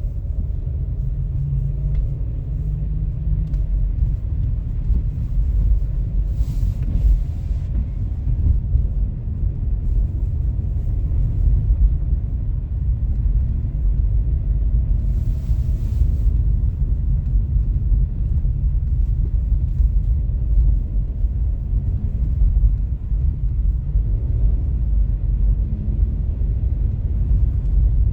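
Steady, loud low rumble, with two brief hissing swells about seven and fifteen seconds in.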